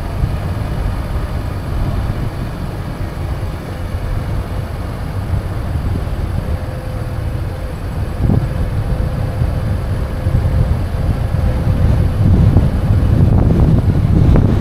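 Car driving through town: a steady low rumble of engine and road noise, growing louder near the end as the car picks up speed.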